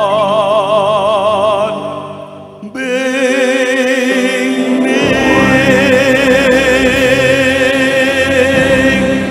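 Male solo singer and a small mixed choir holding the closing notes of a hymn, with vibrato, over backing music. The first held note fades out about two seconds in. A fuller closing chord comes in about three seconds in and is held nearly to the end.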